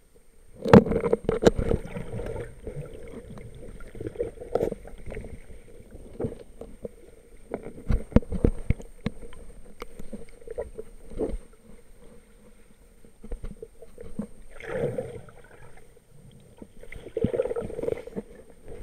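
Muffled knocks and bumps with water sloshing, picked up inside an action camera's waterproof housing as it is moved around underwater. A faint steady hum runs underneath.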